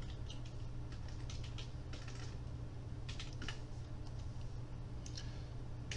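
Computer keyboard keystrokes: scattered single key clicks and short runs of taps in small clusters, over a steady low hum.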